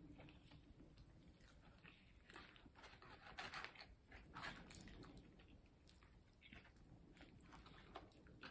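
Faint chewing and biting of food, with scattered short crunchy crackles, loudest about three and a half seconds in.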